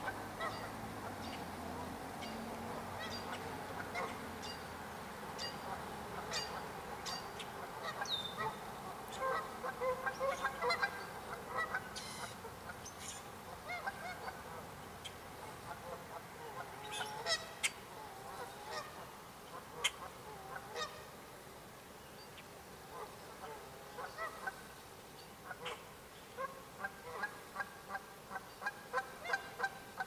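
Canada geese honking again and again, with a cluster of calls about ten seconds in and a quick, even run of about two honks a second near the end.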